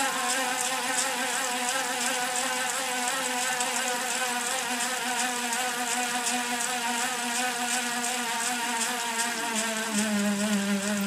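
Wheel-on indoor bike trainer whining steadily as the rear tyre spins its resistance roller under pedaling. The pitch wavers slightly, with a faint regular ticking about twice a second. Near the end the pitch slides down and a lower, stronger hum takes over.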